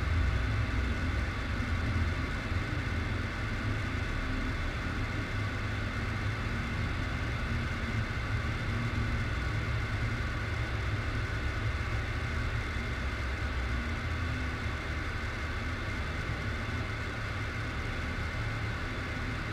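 A steady, low droning rumble with a hiss of noise above it, unchanging apart from easing off slightly toward the end.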